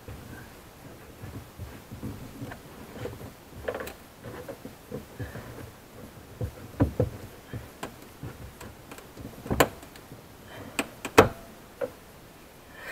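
Irregular clicks, taps and knocks of diagonal cutters working against the plastic trunk trim panel and its plastic retaining tab as the tab is pried up, with two sharper knocks near the end.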